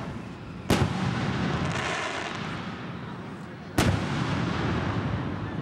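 Aerial fireworks shells bursting: two sharp booms, about a second in and again about three seconds later, each followed by a long rolling echo.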